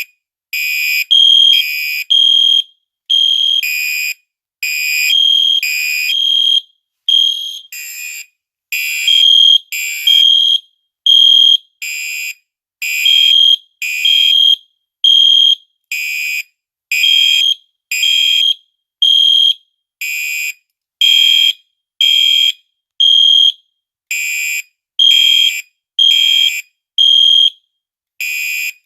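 Fire alarm sounding during a test: a loud, high-pitched electronic beep repeating about once a second, with slightly uneven gaps.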